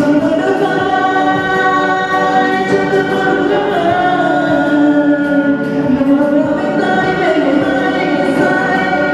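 A singer holding long sustained notes over a backing track, part of a sung ballad.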